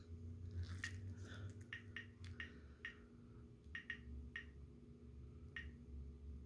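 Geiger counter clicking irregularly, about a dozen sharp clicks, each one a particle of radiation from uranium ore registered in the Geiger tube. The clicks come thicker in the first few seconds and thin out after that, as the radiation level falls.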